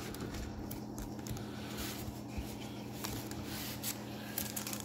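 Quiet room with a steady low electrical hum and a few faint light taps.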